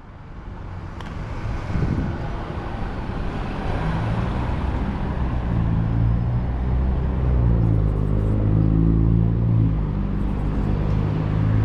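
City street traffic with a heavy vehicle's engine running nearby, its low drone holding over a steady background of traffic noise. The sound fades in over the first two seconds.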